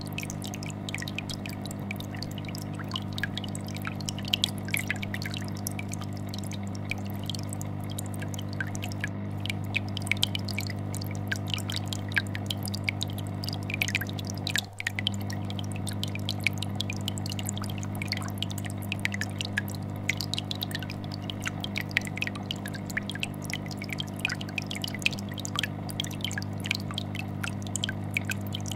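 Aquarium air bubbler, its bubbles popping and plopping in a stream of small drips, over the steady vibrating hum of a fish tank filter. The sound briefly dips about halfway through.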